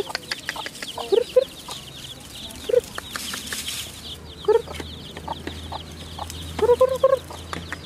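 Domestic mother hen clucking low: single clucks spaced a second or two apart, then a quick run of clucks near the end. Her chicks peep without pause in rapid, high, falling calls.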